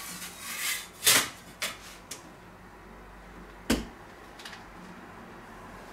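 Kitchen handling sounds: rustling and a few knocks, the sharpest about a second in and another just before four seconds, then only faint room noise.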